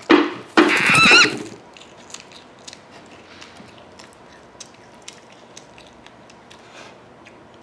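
A young girl's short, high-pitched squeal in the first second and a half. After it come only faint small clicks and mouth sounds as she nibbles a piece of broccoli.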